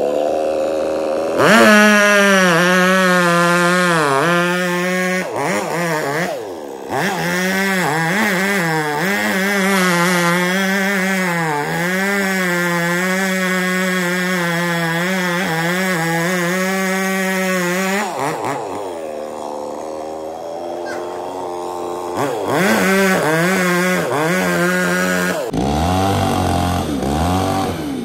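Two-stroke chainsaw running at high revs, its pitch sagging and recovering again and again as it cuts into a coconut palm trunk. About 18 seconds in it eases off, revs up again briefly a few seconds later, then drops to a lower, rougher running near the end.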